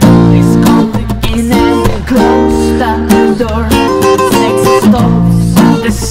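Music with guitar, coming in loud at the very start with chords changing about once a second.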